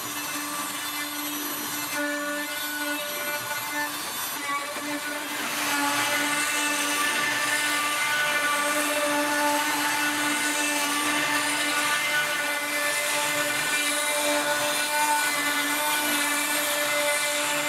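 CNC router's spindle whining steadily while its small end mill cuts into an end-grain ash blank; the sound gets louder about five and a half seconds in.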